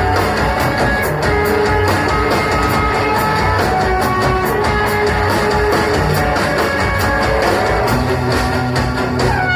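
Live rock band playing: guitars with sustained notes over drums keeping a steady beat.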